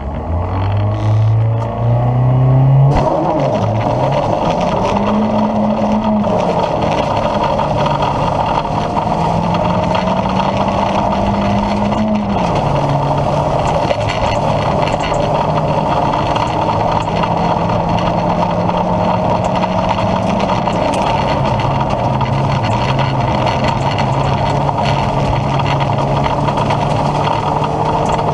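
A 1.6-litre Opel Astra G rally car's four-cylinder engine heard from inside the cabin. It is revved on the start line, the car launches about three seconds in, and it accelerates hard through the gears, the pitch climbing and dropping at each shift and lift.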